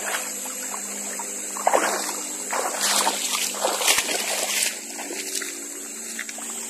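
River water splashing in a few irregular bursts, the loudest around the middle, as someone moves through it.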